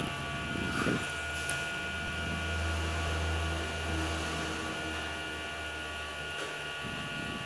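Steady electrical hum and hiss of the recording setup, with a low drone that drops out about six seconds in and a couple of faint clicks near the start.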